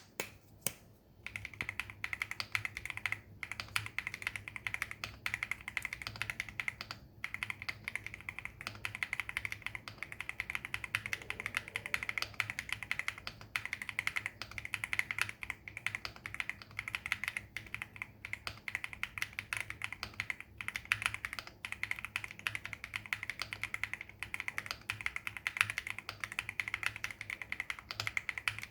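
Steady, fast typing on a stock Xinmeng X87 mechanical keyboard: its switches are unmodified and unlubed, and the keystrokes make a dense stream of clacks. It starts about a second in and has a few brief pauses.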